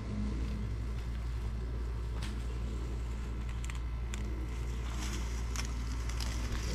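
A steady low mechanical hum, like a motor or engine running nearby. A few faint short clicks or scrapes come through over it.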